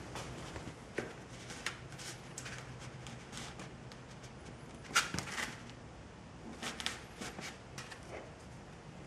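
Light scattered clicks and rubbing from handling a foam pool noodle and the coat-hanger wire being worked down through its wall, with one sharper click about five seconds in.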